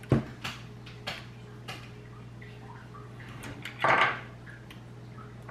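Light clicks and clatter of hand-worked plastic and metal copier fuser-unit parts as wires are fed through their brackets, with a louder, longer rattle about four seconds in. A steady low hum runs underneath.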